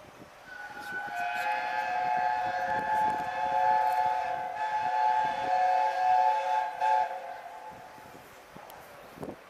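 Steam locomotive chime whistle sounding one long blast of about six seconds, several notes together as a chord.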